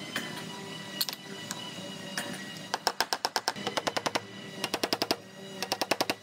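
Small body hammer tapping rapidly on a sheet-metal car roof in three quick runs, knocking down the high spots around a pulled dent. A few single knocks come first.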